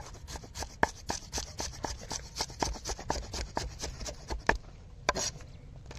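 Knife chopping ginger in quick, even strokes, about five a second.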